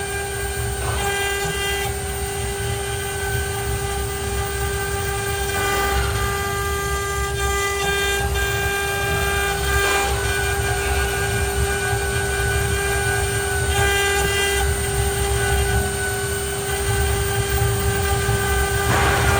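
CNC router running with a steady high whine from its spindle. Extra higher-pitched tones cut in and out every few seconds over a low rumble.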